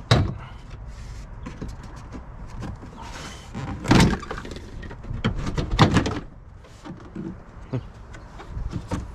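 Plastic interior trim panel being pried and pulled off a vehicle's rear pillar: irregular clicks, knocks and scraping. There is a sharp knock at the start, a loud rustling scrape about four seconds in, and a run of knocks a second or two later.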